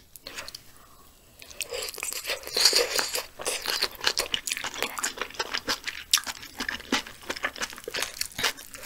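Close-miked eating sounds: a spoonful of steamed egg and spicy chicken-stew broth taken in and chewed. After a quiet first second come a wet sip and then many quick mouth clicks and smacks.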